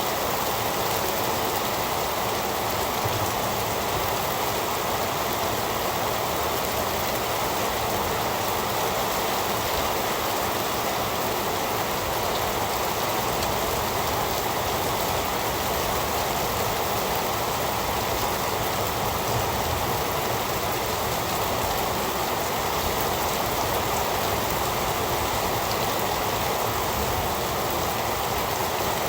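Heavy rain falling, a steady, even hiss of downpour without thunder or any single loud drop standing out.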